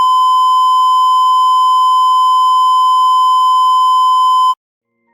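A steady electronic test tone near 1 kHz, loud and unbroken, cutting off suddenly about four and a half seconds in.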